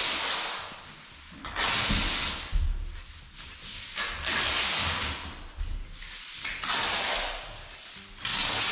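Ramboard seam tape being run out and rubbed down by hand onto the paper Ramboard floor covering along a seam: a series of scraping swipes, each about a second long, roughly every two seconds.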